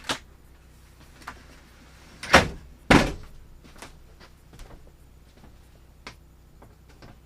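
Two loud knocks about half a second apart, with scattered lighter clicks and taps of things being handled in a small wooden room.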